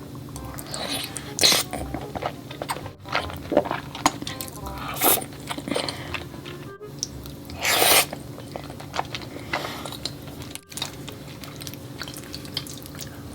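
Close-miked eating of noodles, with wet slurps and chewing in short loud bursts. A steady background music track plays underneath.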